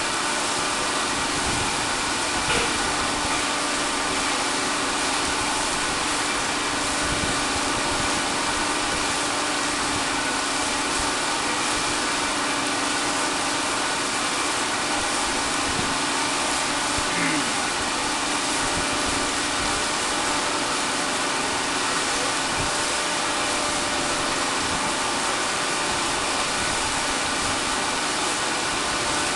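Steady drone of offshore oil rig machinery: a constant hum with several unchanging tones over a broad hiss.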